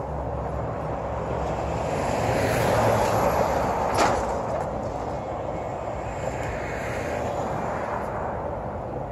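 Road traffic: a steady rush of passing vehicles that swells and eases off, with one sharp click about four seconds in.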